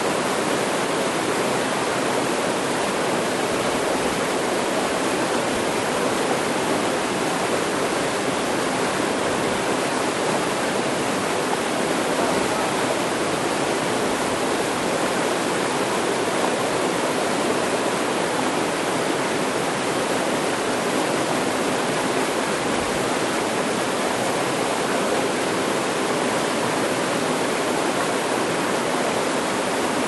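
A small waterfall spilling over rock into a plunge pool, a steady rush of falling and splashing water.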